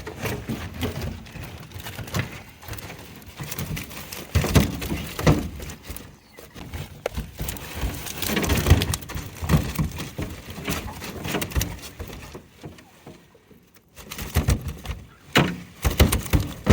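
Irregular knocks, thumps and splashy rustling as a hoop net full of buffalo fish and catfish is hauled into a small boat, the fish flopping and slapping against the hull. The loudest thumps come about four and a half, five, and eight to nine seconds in, with a brief lull near the end.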